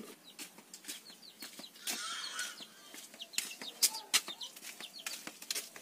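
Chickens clucking, with short high chirps and a scatter of sharp clicks, the loudest about four seconds in.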